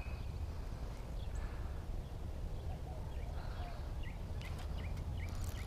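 Short bird chirps repeating, mostly in the second half, over a steady low rumble of wind on the microphone, with a few light clicks near the end.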